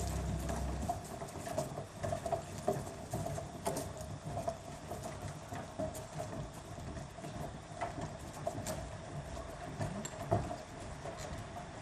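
Footsteps of several people walking across a wooden stage floor: irregular light knocks and shuffles over a faint steady hum.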